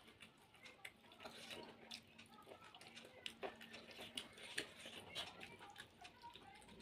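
Close-up eating sounds: soft, irregular chewing, lip smacks and mouth clicks from a person eating a meal.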